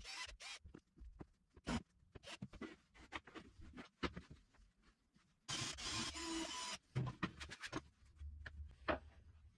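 Pieces of pine wood being handled and set down on a workbench: scattered light knocks and clicks, with a noisier stretch lasting about a second just past the middle.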